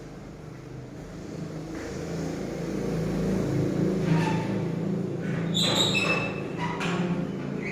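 Motorcycle engine running steadily, growing gradually louder, with a few short high-pitched tones about halfway through.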